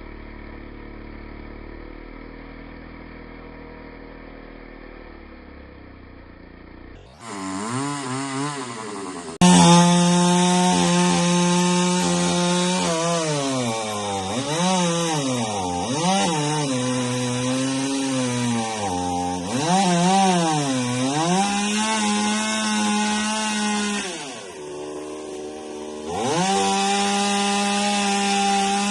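Gasoline chainsaw cutting wood at high revs, its pitch dipping again and again as the chain bogs down in the cut and rising as it frees, with a short drop in revs near the end. For the first several seconds only a quieter, muffled engine hum is heard.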